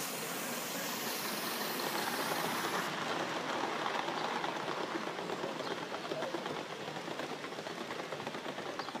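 Gauge one live steam train running past on the garden track, its wheels clattering quickly on the rails. Loudest a few seconds in, then easing off as the train moves away.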